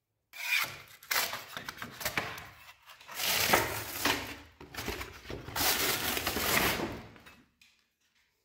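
Wallpaper being pulled off a wall in large sheets: several long ripping tears, which stop near the end.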